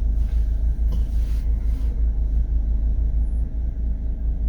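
Jeep engine running at low revs, a steady low rumble as the vehicles wait at the foot of a steep rock climb.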